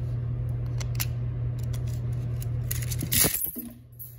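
Handling of a small-engine recoil starter's plastic rope pulley and broken recoil spring: scattered light clicks, then a loud scraping rattle about three seconds in, as the old spring is pulled out. A steady low hum underneath stops just after the rattle.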